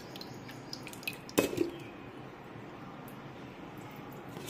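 Blended watermelon juice dripping through a stainless mesh sieve, with a sharp knock and a short ring about one and a half seconds in.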